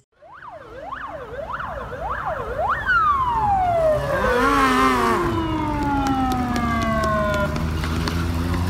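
Police car siren: about five quick rising-and-falling whoops, then one long wail that falls steadily in pitch over about five seconds. A steady vehicle engine hum comes up near the end.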